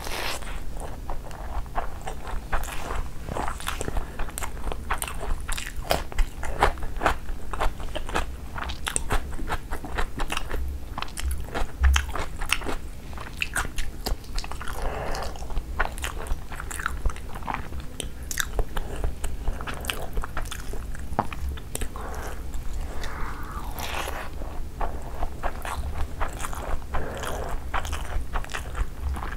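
Close-miked chewing and mouth smacking as a big handful of basmati rice with egg curry is eaten: a constant patter of sharp, moist mouth clicks.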